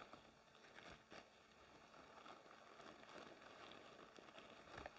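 Near silence: room tone, with a couple of faint short clicks about a second in and near the end.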